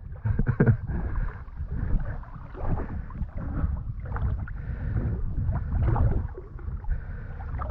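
Water sloshing and splashing irregularly as a person moves through a shallow spring-fed river, over a low rumble of wind on the microphone.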